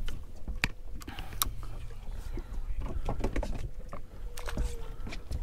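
Steady low rumble of wind and water around a small boat at sea, with a few sharp knocks and clicks from gear being handled on deck.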